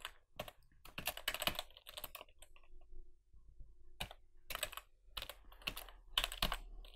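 Computer keyboard typing: two runs of quick, quiet key clicks as a password is entered and then entered again to confirm it, with a pause of about two seconds between them.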